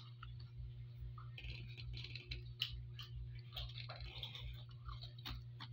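Crunching and chewing of crispy puffed vegetable chicharron, with irregular crackles and sharp clicks and the dry rattle of pieces picked from a bowl, over a steady low hum.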